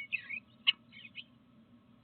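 Bluebirds giving short, warbled chirping calls, with a single sharp tap a little under a second in, over a low steady hum.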